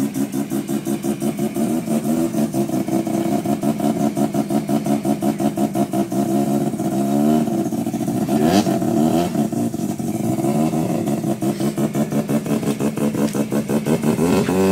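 Rotary (Wankel) engine of a modified Mazda RX-7 (FD) running with a choppy, pulsing idle. It is blipped up about 7 s in and again near the end, with one sharp pop about 8.5 s in.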